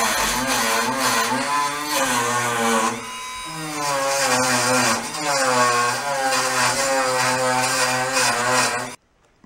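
Handheld electric rotary tool running at high speed against the rusty ground bracket of a gas range's burner igniter, cleaning off the rust so the igniter will spark. The motor whine wavers up and down in pitch, dips briefly about three seconds in, and cuts off near the end.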